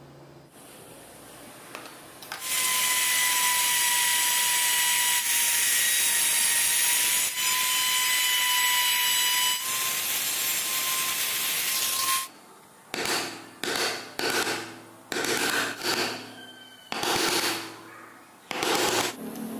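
Handheld trim router running with a steady high whine as its bit cuts grooves in a wooden board, for about ten seconds before it stops. Then a wood chisel is struck again and again, seven or eight separate blows, chipping out the grooves.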